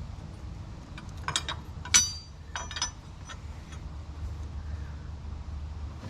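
Metal parts clinking and tapping as the alternator's top bracket and its bolts are handled and fitted by hand: a few light clicks, then a sharper ringing clink about two seconds in and a couple more taps after it.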